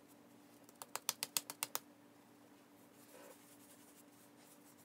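A quick run of about eight light clicks or taps, packed into about a second, starting about a second in, over a faint steady hum.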